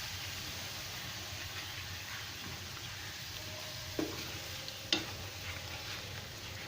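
Spiced masala and yogurt sizzling gently in a kadai while being stirred with a spoon, with two sharp knocks of the spoon against the pan about four and five seconds in.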